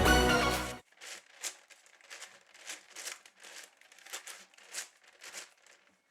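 Layers of a SengSo 17x17 plastic puzzle cube being turned by hand: a series of about a dozen short plastic clicks and rustles, irregularly spaced, after music cuts off under a second in.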